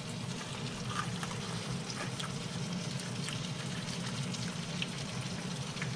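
Steady sizzle of redfish cooking in a pan on the stove, with a few faint crackles, over a low steady hum.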